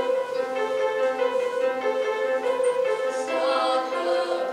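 Instrumental backing track playing a song's introduction: steady, evenly repeated pitched notes. A little over three seconds in the sound grows fuller, as a solo singing voice comes in.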